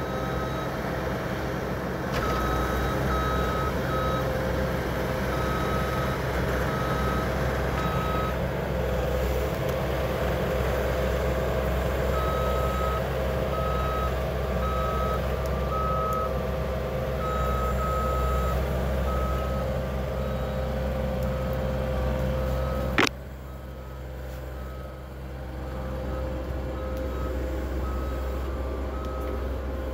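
ASV RT-50 compact track loader's diesel engine running steadily, with its backup alarm beeping in short runs as the machine reverses. About three-quarters of the way through there is one sharp click, after which the engine sounds quieter and the beeps fainter.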